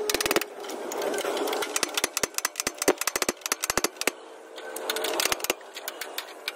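Hammer striking a chisel on the crumpled sheet steel of a Tata Signa truck cab's damaged front corner, metal-on-metal blows in quick runs of several a second with a short lull about four seconds in.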